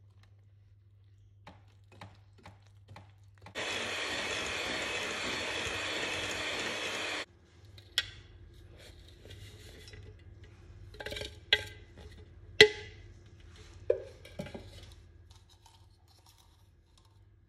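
Electric hand mixer runs steadily for about three and a half seconds, beating egg into creamed butter, then stops. A few sharp knocks and clinks follow later.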